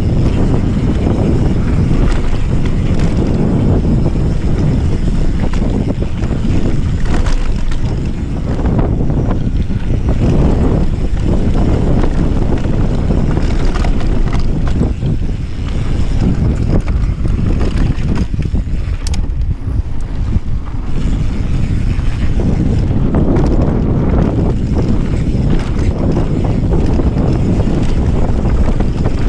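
Wind rushing over a riding camera's microphone and mountain-bike tyres rumbling over a dirt trail at speed, with scattered knocks from bumps.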